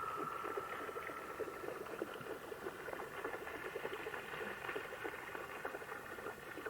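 Common loon call trailing off: a held note that fades out about a second and a half in, over a steady background of many rapid short clicks and pops.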